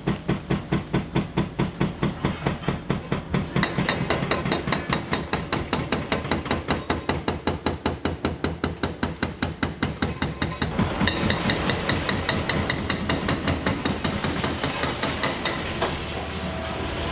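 Hydraulic breaker hammer on a Liebherr R936 excavator pounding concrete in a fast, even rhythm of blows. About ten seconds in it gives way to the steadier sound of the larger Liebherr R954C demolition excavator's engine and hydraulics working.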